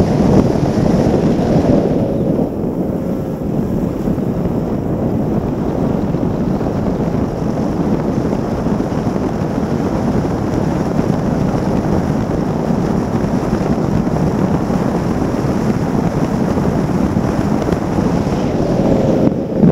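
F1 tunnel-hull racing powerboat running at speed: wind buffeting the on-board microphone mixed with the outboard engine and rushing water spray, a loud, steady rush that dips briefly near the end.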